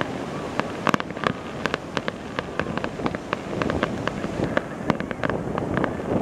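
Aerial fireworks bursting: an irregular rapid series of sharp bangs and crackling pops, several a second, the loudest about a second in, over a steady low rush.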